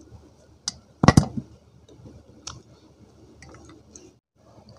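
Close-miked crunching of a person biting through a dry slab of multani mitti (fuller's earth clay): a sharp snap a little under a second in, the loudest crackling bite just after a second, then a smaller snap and a few light crunching clicks.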